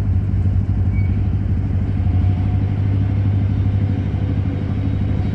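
An engine running steadily, a low, even drone with a strong hum.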